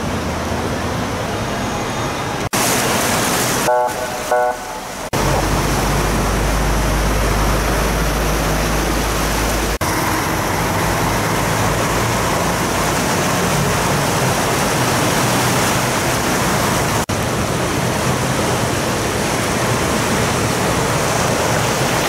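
Heavy rain and floodwater making a loud, steady hiss, changing abruptly at several cuts. A voice is briefly heard about four seconds in, and a deep low rumble runs from about five to ten seconds in.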